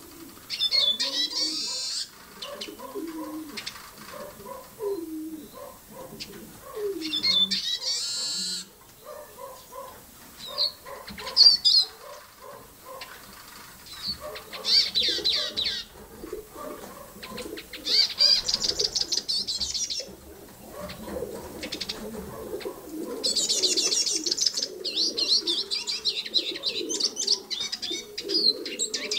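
Caged Eurasian siskins singing: repeated high, rapid twittering phrases of one to a few seconds each, about six times, the longest run near the end, over softer, lower warbling notes.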